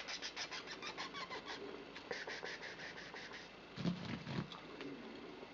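Kitten playing on a carpet: quick runs of soft clicking, about eight a second, in two spells, followed by a couple of heavier thumps about four seconds in.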